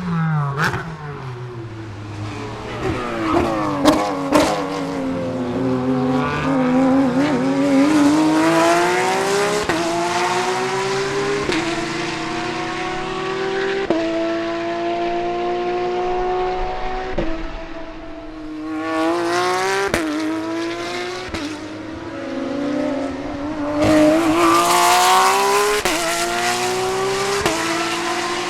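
Porsche GT3-class race car's flat-six at full throttle, its pitch climbing through the revs and stepping down at each upshift. Around the middle it lifts off and drops, then pulls hard up through the gears again. A few sharp cracks come about four seconds in.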